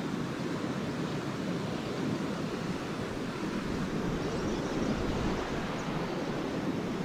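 Lake waves breaking and washing on the shore, a steady wash of surf, with a few faint high chirps about four seconds in.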